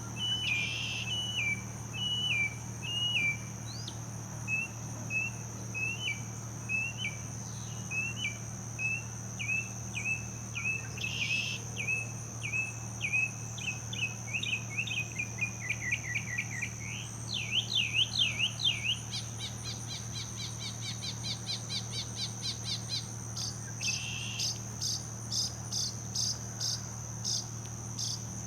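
A songbird singing a long, varied song of whistled phrases, each repeated several times before it switches: slurred stepped notes, a long run of short rising notes about two a second, quick falling slurs, loud up-and-down sweeps about two-thirds through, then a fast trill. Under it a steady high insect drone.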